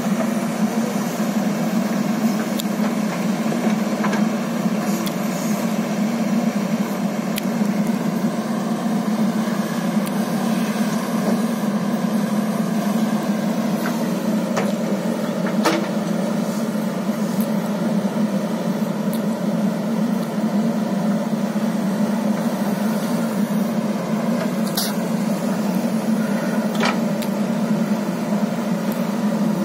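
JCB 3DX backhoe loader's diesel engine running steadily in normal mode as the backhoe digs soil and loads it into a tractor trolley, an even low hum throughout. A few short knocks stand out, one about halfway through and two near the end.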